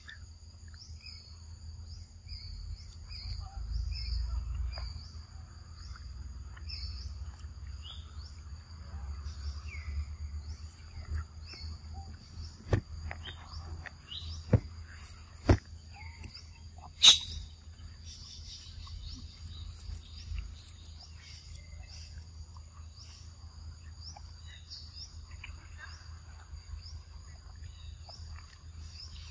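Steady chorus of insects trilling high, with short chirps repeating about once a second, over a low rumble. Four sharp clicks come a little before halfway through, the last and loudest about 17 seconds in.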